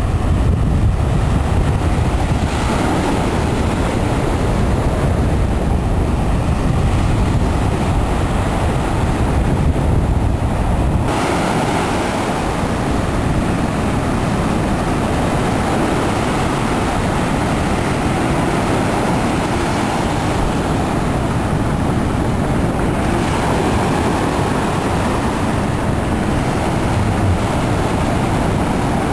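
Surf breaking on the beach, with wind buffeting the microphone in a heavy low rumble; the rumble drops away suddenly about eleven seconds in, leaving the steady hiss of the waves.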